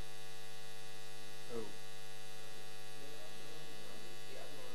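Steady electrical mains hum with a ladder of overtones in the sound system's audio feed, with a faint voice briefly audible about a second and a half in and near the end.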